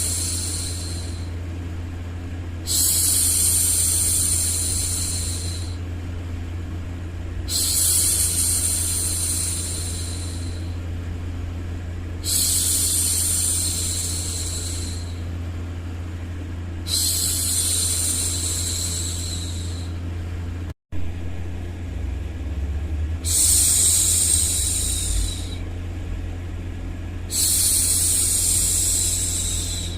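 A woman's long 'shhh' hushing sounds, each about two and a half seconds, repeated roughly every four to five seconds to soothe a baby, over a steady low background noise. The sound cuts out for an instant about two-thirds of the way through.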